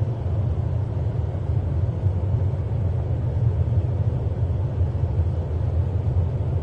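Steady low rumble of a car heard from inside the cabin, engine and road noise with no change through the whole stretch.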